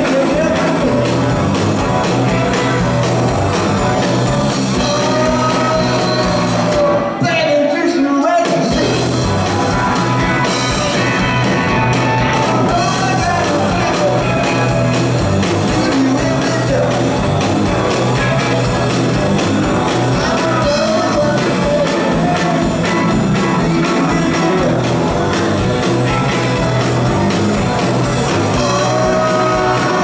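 Live rock band playing, with electric guitars, bass guitar and drums under a sung lead vocal, heard from the audience in a hall. The bass and drums drop away briefly about seven seconds in, then the full band comes back.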